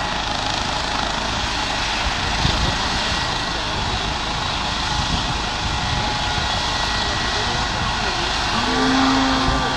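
Eurocopter EC135 helicopter running on the ground with its rotor turning: a loud, steady rush of turbine and rotor noise with a thin high whine. A brief pitched call cuts through near the end.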